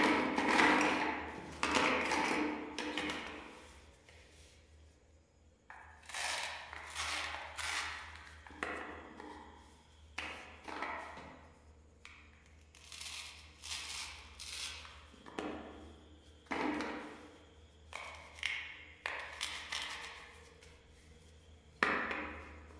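Plastic toy fruit pieces being handled: at first a clattering rattle as a pile of pieces is pushed about, then a string of separate light taps and clacks as pieces are picked up and set down on a hard surface, over a faint low hum.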